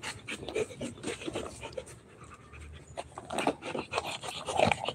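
Rottweiler panting with quick, short breaths, winded from running after a ball.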